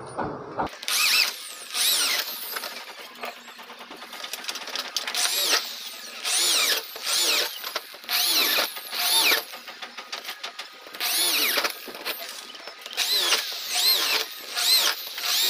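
Corded electric drill with a 3/16-inch bit boring a row of screw holes through aluminum window profile. The trigger is squeezed in many short bursts, so the motor's whine rises and falls again with each hole.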